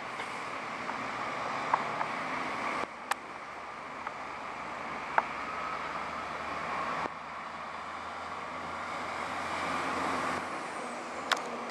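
Passenger train hauled by an SU42 diesel locomotive running away along curved track: a steady rumble of engine and wheels on the rails, with a few sharp clicks.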